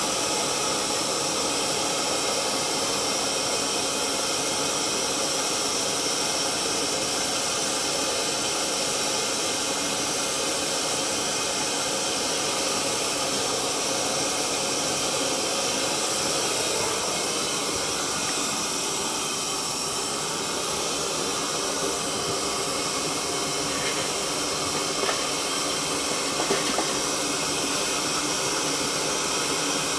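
Kiln burner firing with a steady rushing hiss, the sound of a kiln at full temperature. A few faint ticks come through near the end.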